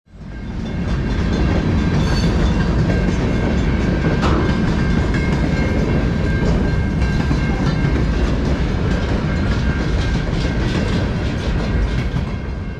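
A train running past: a steady rumble with a thin, steady high tone and scattered clicks, rising over the first second.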